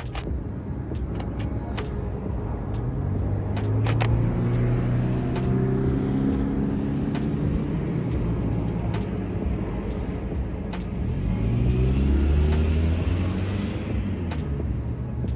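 Street traffic: cars driving past close by, their engine notes rising and falling in pitch over a steady low rumble. A few sharp clicks come in the first seconds.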